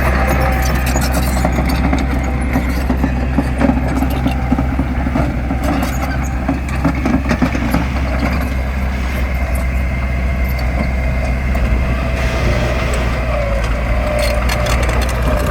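Heavy construction machine's diesel engine running steadily under load, with scattered metallic clanks.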